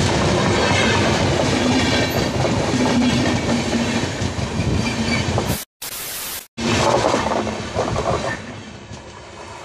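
Passenger train passing close by, its coaches rumbling and wheels clattering over the rails. The sound drops out briefly a little past halfway, comes back loud, then fades as the train draws away near the end.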